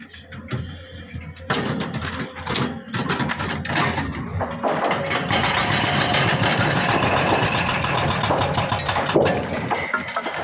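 Arc welding on a pipe: a few sharp clicks and short bursts of crackle, then, about halfway through, a steady sizzling crackle of the arc over a low, constant machine hum.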